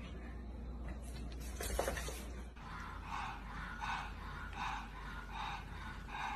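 A few sharp knocks about two seconds in, then a pug making a rhythmic run of five short breathy sounds, about one every three-quarters of a second, as a finger is held at its face.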